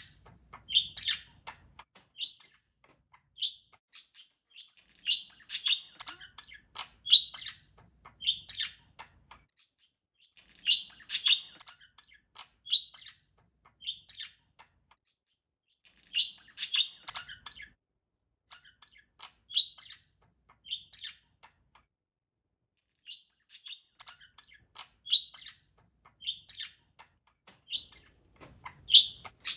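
Pet parakeet chirping: short, high chirps in bursts, with pauses of a second or more between them and a longer quiet stretch about two-thirds of the way through.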